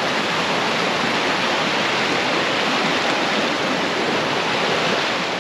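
Fast-flowing river water rushing steadily, a constant even hiss.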